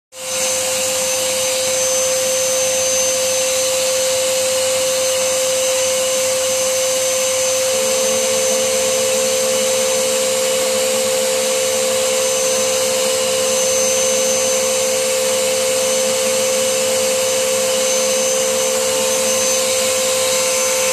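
Vacuum cleaner running, its hose nozzle held over a PS3 Super Slim's casing to suck out dust: a steady whine over a rush of air. It comes on suddenly, and a second, slightly lower tone joins the whine about eight seconds in.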